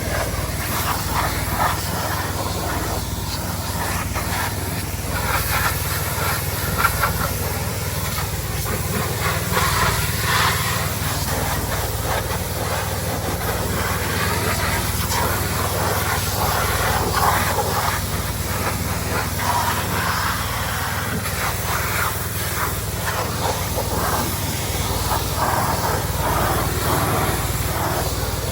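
Pressure washer spraying water: a steady hiss over the steady hum of its motor.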